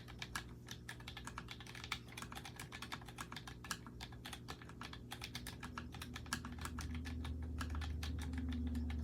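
Fast, steady typing on a Keychron K3 low-profile mechanical keyboard, a quick run of key clicks several times a second.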